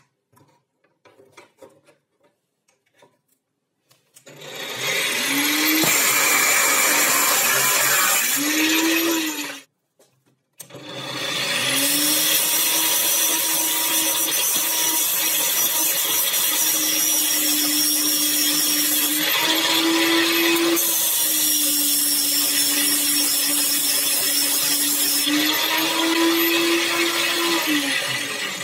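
Sparky angle grinder mounted in a stand, spinning up about four seconds in, stopping briefly near ten seconds, then running again until it winds down near the end. Its steady whine shifts in pitch as a metal rod is pressed against the spinning disc and ground, with the hiss of grinding.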